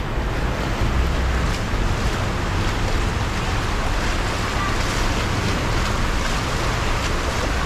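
Steady wash of water and traffic on a flooded street after a downpour, with a low wind rumble on the microphone.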